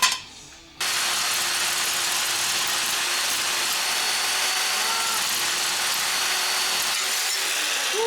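A power tool starts abruptly about a second in and runs at a steady pitch with a loud, even hiss, without a break.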